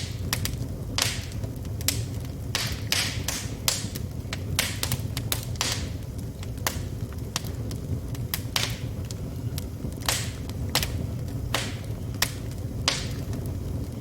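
Wood fire burning in a fireplace, crackling and popping: sharp, irregular pops several times a second over a steady low rumble.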